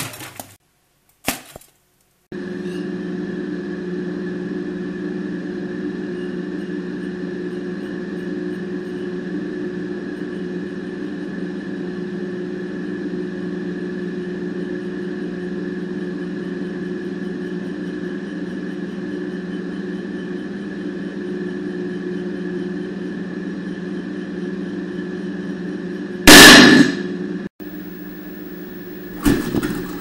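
Microwave oven running: a steady hum with a thin high whine above it, starting about two seconds in. Near the end it is broken by two short, loud bursts of noise.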